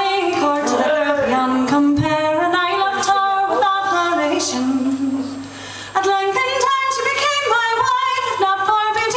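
A woman singing an Irish folk ballad unaccompanied, in long held notes, with a short breath pause about halfway through.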